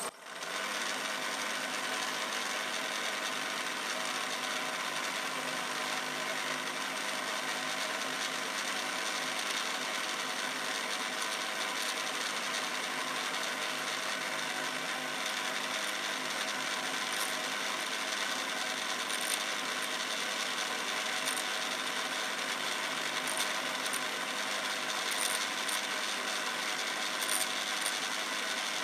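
Homemade Quorn tool and cutter grinder running. Its motor spins an 80-grit disc wheel in a steady whir with several even tones while a parting tool bit is ground against the wheel. A few light high ticks come in the second half.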